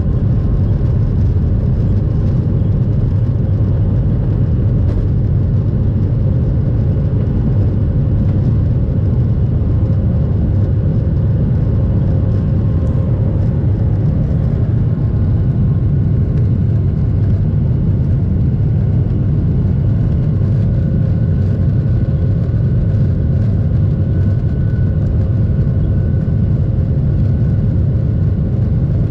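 Boeing 737-800's CFM56 jet engines at takeoff power, heard inside the cabin over the wing: a steady, loud, deep rumble through the end of the takeoff run, lift-off and initial climb. A faint high whine comes in about halfway through.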